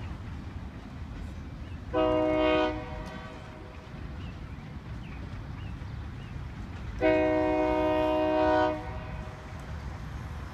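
Freight train locomotive's multi-note air horn sounding twice, a short blast then a longer one, over the steady low rumble of the freight cars rolling away.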